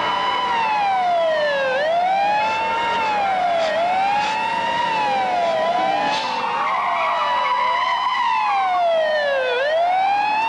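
Several police car sirens wailing together, each rising and falling in pitch every couple of seconds and overlapping out of step, as the cruisers approach.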